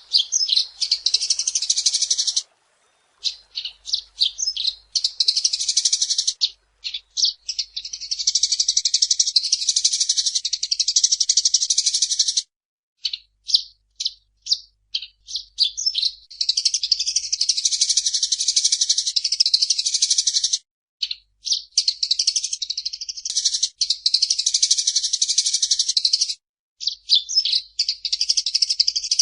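Eurasian tree sparrow (burung gereja) singing in long runs of rapid, dense high chirping, each lasting a few seconds. Short pauses between the runs are dotted with single separate chirps.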